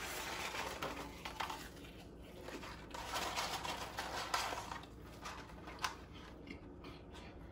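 McDonald's cardboard fries carton crinkling and rustling as it is gripped and fries are pulled out by hand, in irregular patches with a few sharp clicks.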